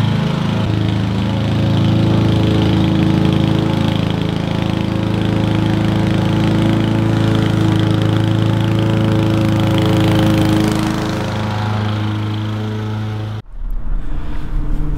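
Honda four-stroke walk-behind lawn mower engine running steadily under load while cutting grass. It cuts off abruptly near the end.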